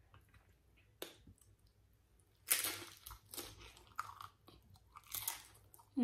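Tortilla chips with taco dip being bitten and chewed close to the microphone: several crisp crunches with quieter chewing between them, the strongest about two and a half seconds in.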